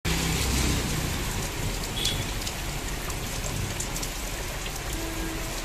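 Steady rain falling on trees, shrubs and clay-tiled roofs, with scattered faint drop ticks.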